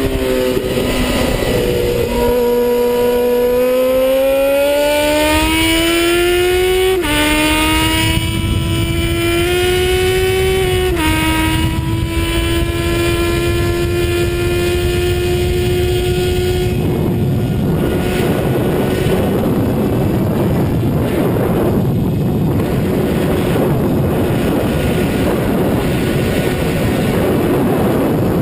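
Suzuki Bandit 650 S inline-four motorcycle engine accelerating hard, its pitch rising and dropping sharply with two upshifts, then held at a steady high pitch. From a little past halfway, heavy wind rush over the microphone at speed drowns most of the engine.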